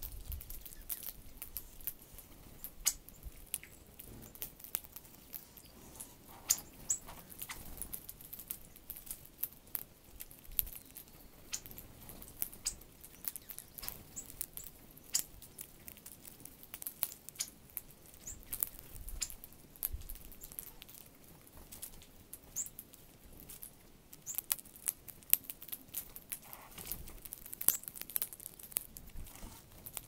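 Northern cardinals and sparrows pecking and cracking seed on a ledge close by: a steady scatter of sharp, irregular clicks and taps of beaks on seed, with a few brief high chirps.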